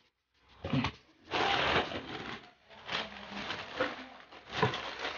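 Cardboard shoe box lid being lifted off with a few light knocks, then the white tissue wrapping paper inside rustling and crinkling as it is pulled open.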